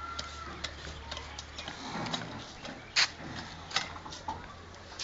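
Pet ring-necked parakeets making a few short, sharp clicks and chirps, the loudest about three seconds in, over a low steady hum.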